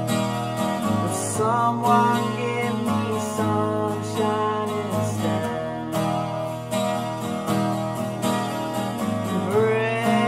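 Epiphone twelve-string acoustic guitar strummed in a steady rhythm, with a man's voice singing a line about a second in and again near the end.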